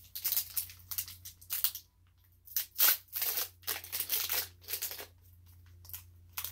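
Foil wrapper of a Pokémon TCG booster pack being torn open and crinkled, a series of short rips and crinkles with the loudest about three seconds in.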